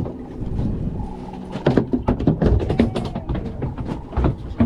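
A landed fish flopping and thrashing against a hard surface: a rapid, irregular run of knocks that starts about a second and a half in, over a low steady hum.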